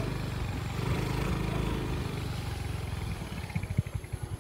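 Small motorcycle engine running while riding on a dirt track. About three seconds in the throttle eases off and the engine settles toward idle, its separate firing beats coming evenly, about ten a second.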